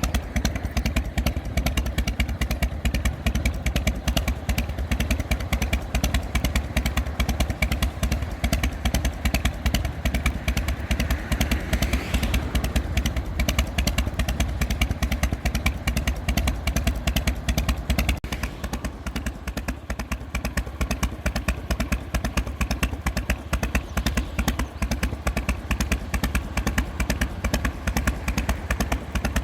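1999 Harley-Davidson Evo Softail Springer's 1340 cc V-twin idling through drag pipes fitted with an inner silencer baffle, its exhaust pulsing in the loping three-beat 'potato' rhythm. About two-thirds of the way through, the exhaust note changes slightly and becomes a little quieter.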